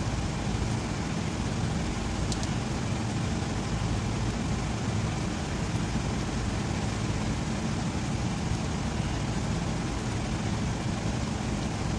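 Steady low engine rumble, even and unchanging, with a couple of faint clicks.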